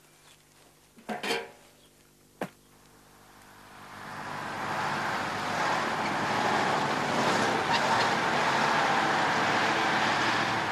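A lorry's engine and tyres, the noise building up from about three seconds in, staying loud as it drives by, and fading near the end.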